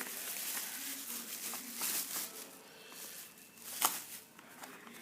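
Handling of a folding knife and its packaging: irregular rustling and crinkling, with scattered small clicks and one sharp click about four seconds in.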